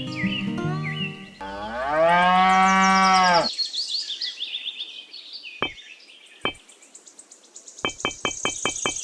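A cow mooing once, a long call of about two seconds that dips and rises in pitch, cutting in over music about a second and a half in. High chirps and a fast run of ticks follow near the end.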